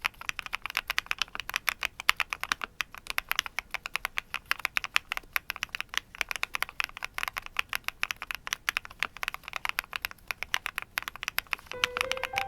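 Fast, continuous typing on a Qwertykeys QK75 mechanical keyboard: a dense run of key clacks with one brief pause. Music with plucked notes comes in near the end.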